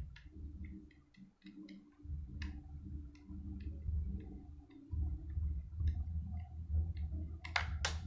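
Small clicks and taps of parts being handled and fitted on a slim laptop drive caddy, scattered irregularly, with two louder clicks near the end, over a low handling rumble.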